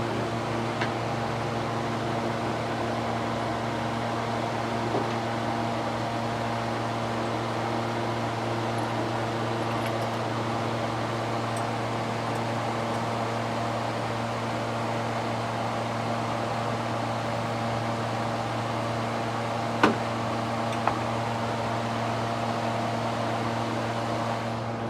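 Steady mechanical hum at an even level, with a couple of sharp clicks about twenty seconds in.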